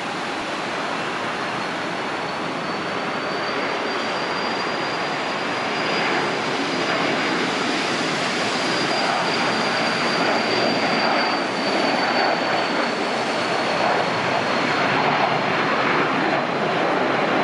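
The twin turbofan engines of a Cessna 560 Citation Ultra at takeoff power during the takeoff roll and lift-off: a steady jet rush that grows louder, with a high fan whine that climbs a little in pitch and then slides down as the jet passes.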